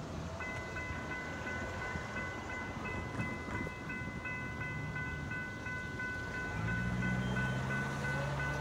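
Railroad grade crossing warning bell ringing steadily with a repeating high ding as a train approaches. A low engine drone joins about six and a half seconds in.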